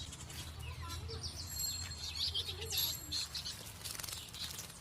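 A bird chirping and whistling: a busy run of short, high chirps and brief held whistle notes, with quick clicks among them, over a low steady hum.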